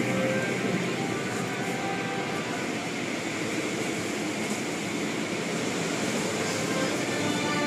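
Automatic car wash heard from inside the car: water jets and spinning cloth brushes working over the body in a steady rushing noise.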